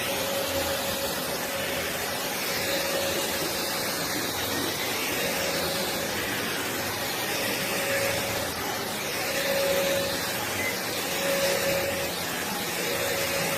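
Shark Rotator Professional Lift-Away upright vacuum (NV501) running: a steady rushing hiss with a mid-pitched whine that fades in and out.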